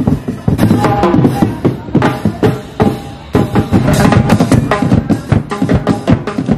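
Music with a strong, steady drum beat.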